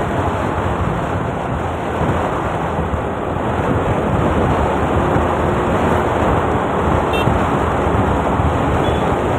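Wind rushing over the microphone of a moving scooter, a steady loud roar with road noise mixed in, growing a little louder about three seconds in.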